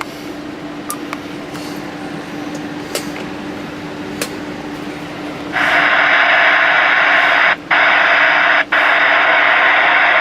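Receiver static from the Stryker SR-955HPC CB radio's speaker: a loud, even hiss comes on suddenly about five and a half seconds in, after a quieter hiss with a low hum, and cuts out briefly twice.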